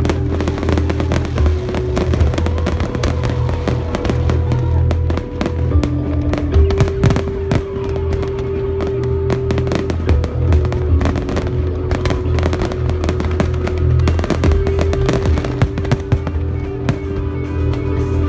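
A fireworks display: many aerial shells bursting and crackling in quick, overlapping succession over a continuous low rumble, with music playing underneath in long held notes.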